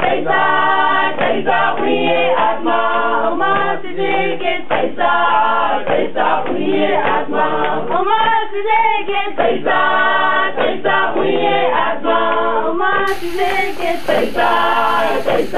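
Background music with choral singing. About thirteen seconds in, the sound turns brighter and fuller.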